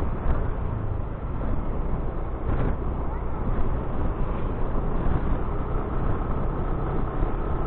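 Motor scooter riding along a road: a steady engine hum mixed with wind and road noise.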